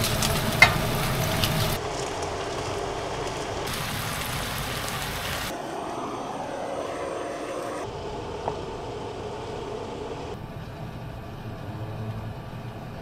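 Meat and vegetables sizzling in a frying pan on a gas stove, in several short cuts, with a sharp knock about half a second in as onion and cabbage are tipped into the pan. Partway through, a butane blowtorch flame is run over the food to char it.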